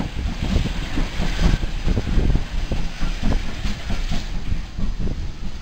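Small steam tank locomotive passing close by at low speed, its wheels and motion giving irregular knocks and clanks over a steady rushing noise.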